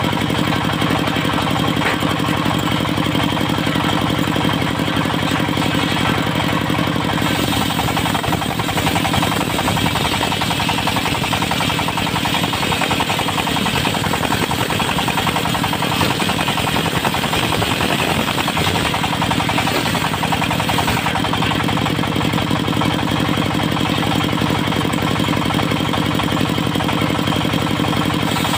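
Mobile circular sawmill running with its engine going steadily. From about seven seconds in until about twenty-one seconds, the disc blade is cut into wood and the sound turns harsher and brighter under the load, then it settles back to running free.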